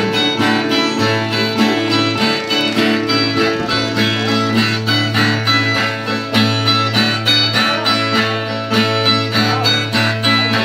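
Brazilian viola, the ten-string folk guitar, played alone between sung verses: a brisk, even strum of about four strokes a second over a steady bass note.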